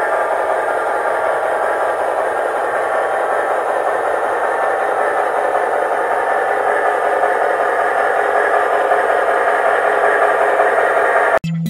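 Soundtraxx Tsunami sound decoder playing an ALCO C-630 diesel engine sound through an HO-scale model locomotive's tiny speaker: a steady, thin engine drone with little bass. It cuts off abruptly near the end.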